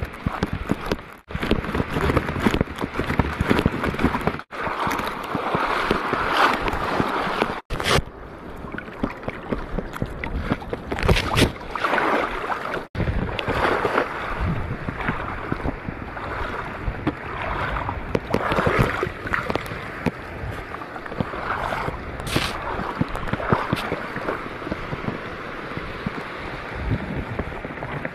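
Water sloshing and splashing, mixed with wind buffeting the microphone; the sound drops out abruptly a few times.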